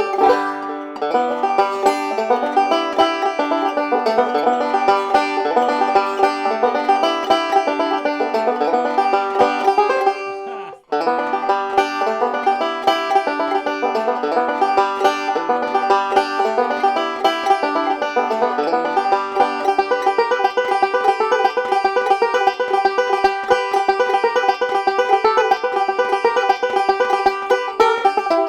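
Ome North Star resonator banjo, with a solid maple tone ring, played solo in a steady stream of fast picked notes. The playing breaks off for an instant about eleven seconds in, then carries on.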